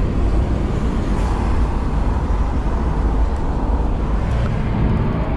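Steady in-cabin engine and road rumble of a 1985 Volvo 240 estate with a 2.3-litre four-cylinder, cruising on a highway.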